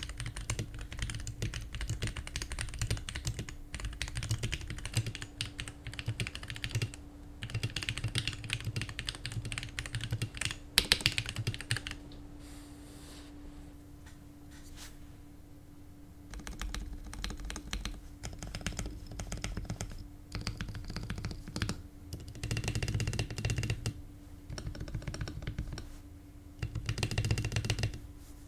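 Fast typing on a Pulsar PCMK TKL mechanical keyboard fitted with TaiHao WOB keycaps: a dense run of key clacks. It stops for about four seconds just before halfway, then resumes in bursts.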